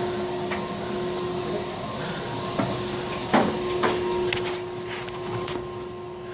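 Steady mechanical hum with a scattering of sharp knocks and taps over it, the loudest about three and a half seconds in.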